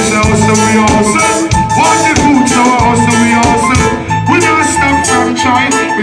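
Live reggae band playing a song, with a steady drum beat, electric guitar and keyboards.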